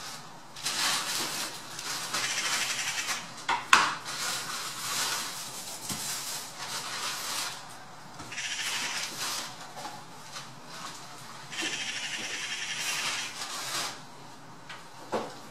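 Eurasian magpies giving harsh, rattling chatter calls in repeated bursts of a second or two. This is their alarm and mobbing call at a sparrowhawk on its kill. One sharp knock comes a few seconds in.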